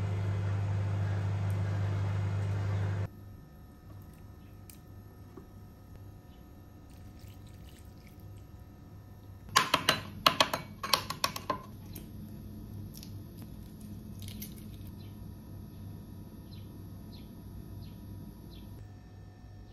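Soup ladled into a ceramic bowl over a loud, steady low hum, which cuts off about three seconds in. About ten seconds in comes a quick run of sharp clinks as ceramic bowls are set down on the counter, then faint small ticks.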